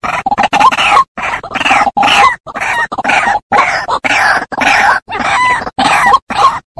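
White-breasted waterhen calling: a loud, rapid run of croaking 'ruak-ruak' calls, one after another with only brief gaps.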